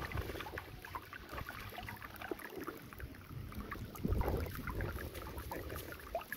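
Feet splashing and sloshing through a shallow stream as two people wade in it. Wind buffets the microphone, strongest about four seconds in.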